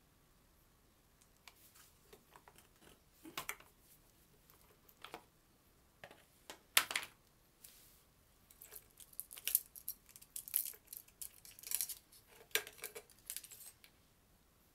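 Metal parts of a chainsaw handled by hand during disassembly: scattered clicks and scrapes as the side cover comes off, then light rattling of the loose saw chain on the bar. The sounds come in short irregular bursts, busiest in the second half.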